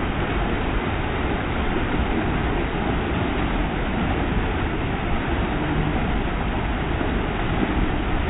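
Flash-flood water, thick with mud, rushing and churning through a narrow rock canyon: a loud, steady rush with a deep low rumble underneath.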